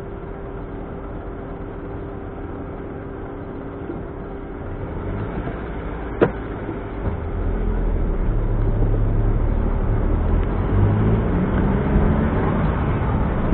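Smart Roadster's turbocharged three-cylinder engine and road noise heard on board. It runs steadily at first, then a sharp click comes about six seconds in. From about seven seconds it grows louder as the engine pulls harder, its pitch rising.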